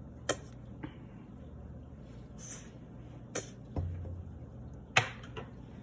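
A few sharp clicks and taps as condiment containers are handled while a salad dressing is put together, over a low steady hum. The loudest click comes near the end.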